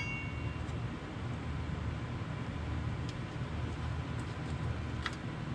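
Light metal-on-metal clinks as a clutch disc and pressure plate are handled against the flywheel: the ringing of a sharp clink dies away at the start, and a fainter click comes about five seconds in, over a steady low background rumble.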